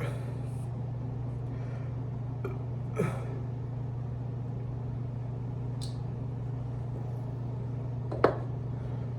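A person's short, sharp throat sounds, once about three seconds in and again, louder, near the end, over a steady low hum.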